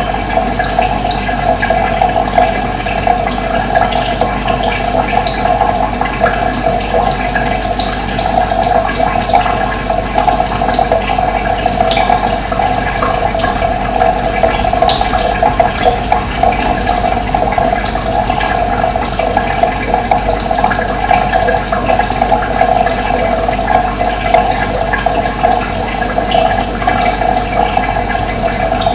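Steady rush of running water, with short high bird chirps scattered through it.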